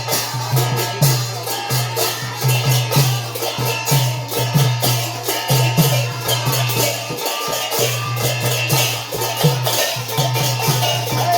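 Sylheti dhamail folk music: a drum beats a steady pulse about twice a second under bright, rapid high percussion.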